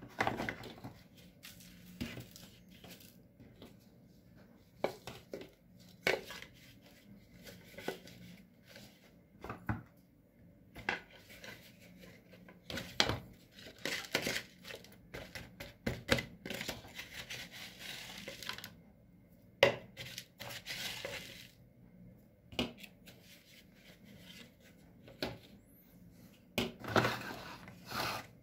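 A small hand trowel scooping potting soil out of a plastic bucket and tipping it into plastic flower pots: irregular scrapes, taps on the plastic rims and the rustle of loose soil pouring, with a few sharp knocks.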